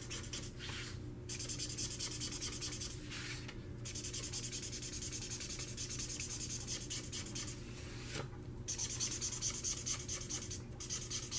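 Spectrum Noir alcohol marker's felt tip scrubbed rapidly back and forth over coloring-book paper, a dry scratchy rubbing made of quick short strokes, broken by a few brief pauses where the pen lifts.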